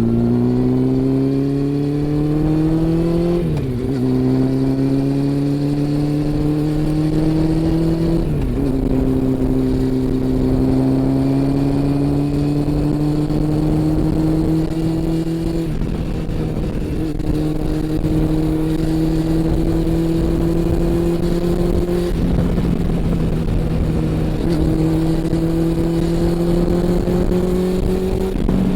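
Honda CB400 Super Four's inline-four engine and exhaust under acceleration. The pitch climbs and drops sharply at upshifts about 3.5 and 8 seconds in, then rises slowly in a higher gear with a few brief dips.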